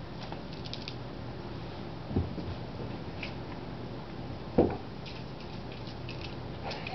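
Steady low hum of an indoor room with a few faint ticks, and two short soft thumps about two seconds and four and a half seconds in, the second louder.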